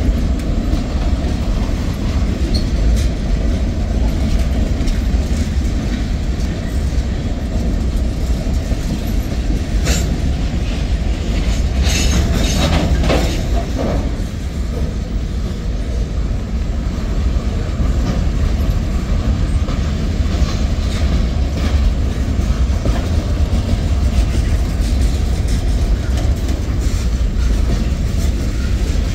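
Freight cars of a mixed manifest train rolling past close by: a steady, loud rumble of steel wheels on the rails. A brief burst of louder metallic screeching and clanking comes about twelve seconds in.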